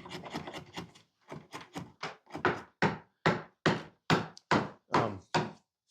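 Repeated strikes on a chisel cutting a notch into a wooden ladder rung, a steady run of sharp knocks about two or three a second that grow louder partway through. Quicker scraping and tapping comes first.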